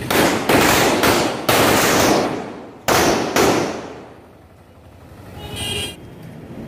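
Diwali firecrackers going off: six loud bangs in about three and a half seconds, each trailing off over about half a second.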